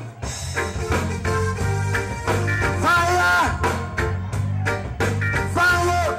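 Live reggae band music with a steady, rhythmic bass line and a melody over it.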